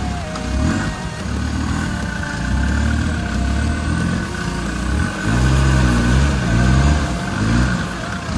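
Land Rover Discovery engine pulling at low revs as the truck crawls through a rutted mud lane, then revving up and down several times from about five seconds in.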